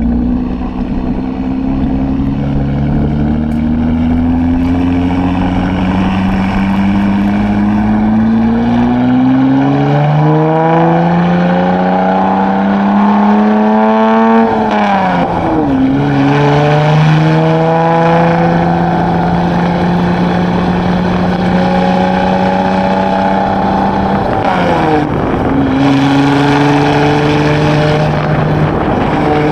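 2016 Chevrolet Camaro RS with a Borla ATAK axle-back exhaust, pulling hard. The exhaust note rises steadily in pitch for about fourteen seconds, drops sharply at an upshift, then holds a nearly even pitch until a second upshift about 25 seconds in.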